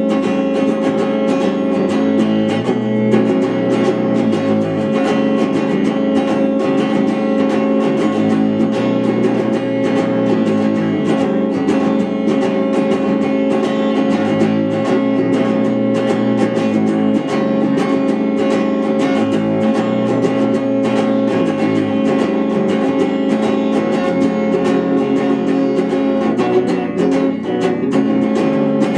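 Electric guitar played through a small combo amp: rapid, even picking over ringing sustained chords, going on without a break.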